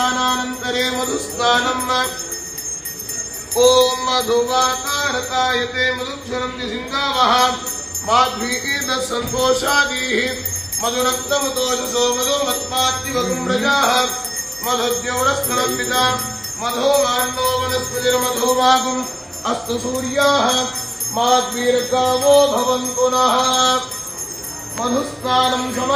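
Hindu devotional music: a voice singing over a steady drone, with bells jingling throughout.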